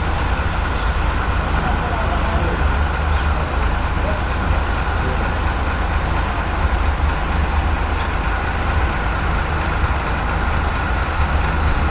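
Industrial washing machine running steadily: a continuous mechanical drone with a strong low rumble and no change in pace.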